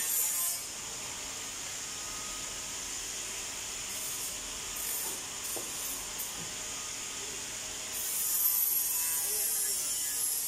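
Steady hissing workshop machinery noise. It grows louder and brighter for a moment about four seconds in and again from about eight seconds on.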